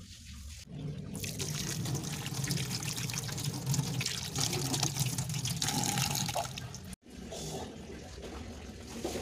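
Water from a kitchen tap running over hands and splashing into a stainless steel sink during hand washing. It starts about a second in and cuts off suddenly about seven seconds in, leaving a fainter hiss.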